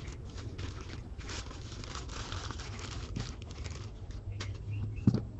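Plastic courier mailer bag crinkling and rustling as it is handled and a box is slid out of it, with a soft knock near the end.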